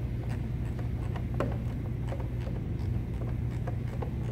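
Quarter-inch ratchet clicking in short, irregular runs as screws are snugged into a plastic air filter housing cover, over a steady low hum.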